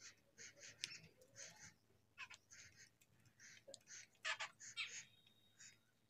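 Faint chatter of jungle babblers: short notes coming irregularly, a few close together at times, with a small cluster about four to five seconds in.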